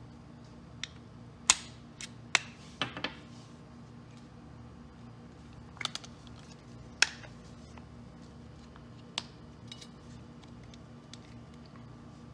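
Sharp metallic clicks and clacks from a Sig Sauer M400 AR-15 being field-stripped: take-down pins pushed out and the upper receiver swung open on the lower. About ten separate clicks, the loudest about one and a half seconds in and again about seven seconds in.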